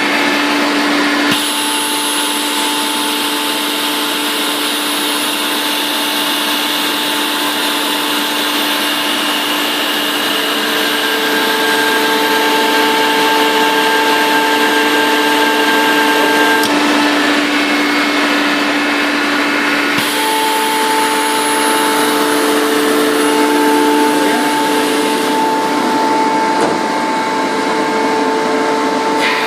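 Rotary screw air compressor running, a loud steady hiss with a constant whine over it; the tone of the whine shifts a few times.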